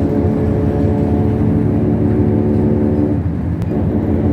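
Motor vehicle engine running steadily, its pitch dipping briefly about three seconds in as it eases off, with a single sharp click just after.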